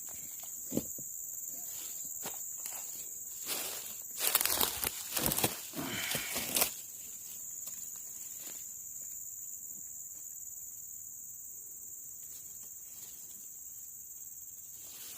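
Steady high-pitched insect chirring, crickets or similar, with a few seconds of loud rustling and knocking in the middle as someone moves through vegetation.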